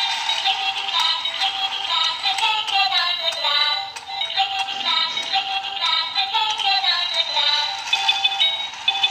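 Happy Dog race-track toy playing its built-in electronic tune through its small speaker: a thin, high melody with no bass that twice slides down in pitch. Light clicking from the plastic stair mechanism and the dogs runs underneath.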